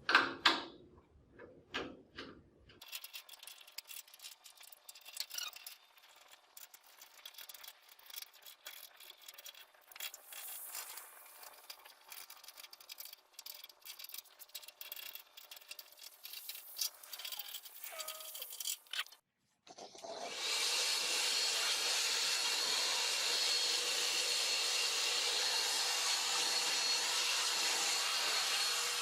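Faint clicks, scrapes and rattles of hand tools on metal parts during a machine teardown. About twenty seconds in, a steady, much louder hissing whir starts and keeps going.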